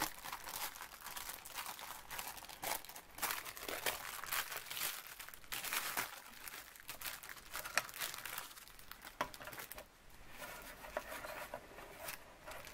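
Clear plastic packaging bag crinkling and rustling in the hands, with irregular crackles, as it is opened and laser-cut wooden pieces are pulled out of it.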